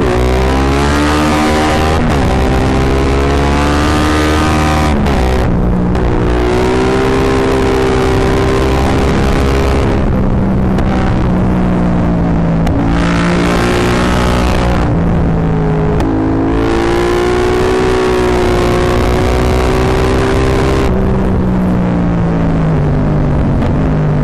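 Yamaha MT-07's 689 cc parallel-twin engine through a full Akrapovic exhaust, heard from the rider's seat while riding. The engine note climbs under throttle and drops back about four times as the rider shifts and backs off. The recording is loud and distorted because the microphone is overloaded by the exhaust.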